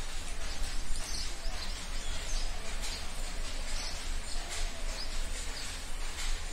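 A small steel bowl being tipped out and scraped by hand onto a steel plate of rice, with scattered faint clinks and scrapes. Small birds chirp in the background over a steady low hum.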